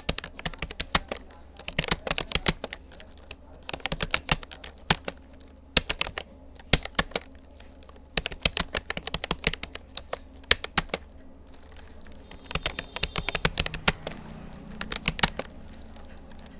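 Rapoo computer keyboard keys clicking in quick runs of touch typing, with short pauses between the runs.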